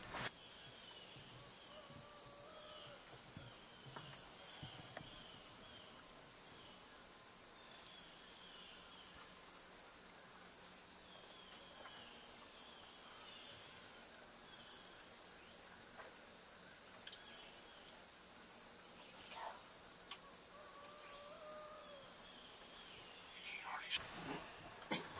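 Steady, high-pitched chorus of insects, with a few faint chirps over it.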